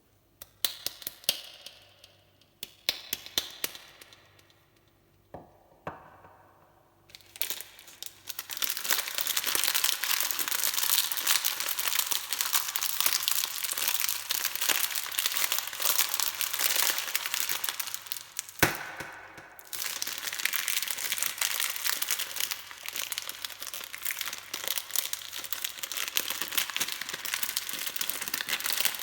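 Soap packaging wrapper being handled and unwrapped: a few separate sharp crackles at first, then dense, continuous crinkling and tearing. Partway through there is a single loud snap, a short pause, and then the crinkling starts again.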